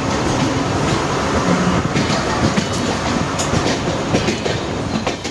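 Passenger train's coaches rolling along, heard from an open coach door: a steady rumble of wheels on rail with an occasional clack over rail joints.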